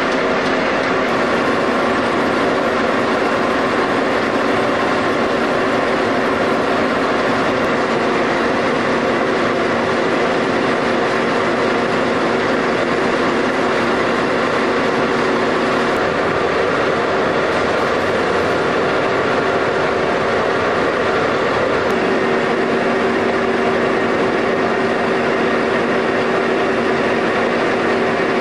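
Hobema four-colour printing and kitchen-towel folding machine running: a steady, loud mechanical din with a constant hum.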